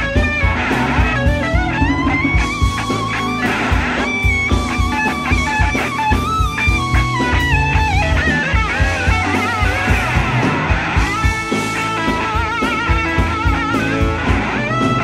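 Electric slide guitar solo on a Gibson SG, the lead notes gliding between pitches and wavering with vibrato, over a rock band with drums.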